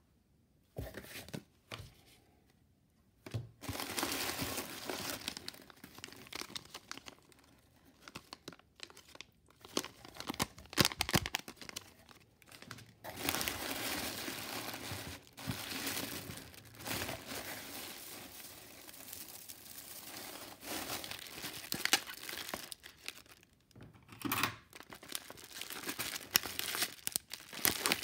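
Tissue paper, bubble wrap and shredded paper filler crinkling and rustling as wrapped items are handled and lifted out of a cardboard box, with many sharp crackles. Only a few clicks at first; the steady rustling starts about three seconds in.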